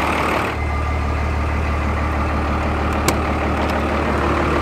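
Dodge Ram 250 pickup's engine idling steadily, growing louder about half a second in. A single sharp click sounds near the three-second mark.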